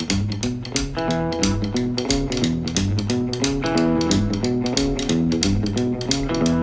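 Upbeat boogie-woogie intro music with plucked guitar, a walking bass line and a steady beat.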